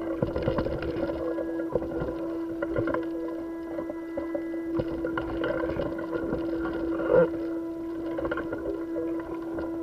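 Vibration carried through a spacewalker's helmet camera in the vacuum of space: a steady mid-pitched hum with a few fainter high tones, under irregular rubbing and knocks from the spacesuit and gloved hands moving, with one louder knock about seven seconds in.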